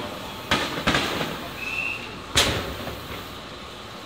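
Fireworks going off: a few sharp bangs, the loudest about two and a half seconds in, each with a short echoing tail.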